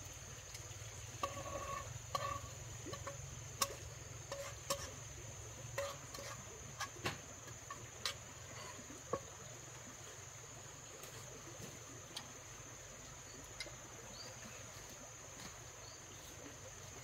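Steady high-pitched insect chorus, with scattered light clicks and knocks during the first half.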